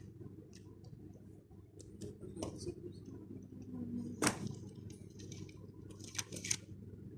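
Beyblade X spinning-top packaging and small plastic parts being handled: scattered light clicks and short rustles, with one sharper click about four seconds in and a quick cluster of clicks near the end.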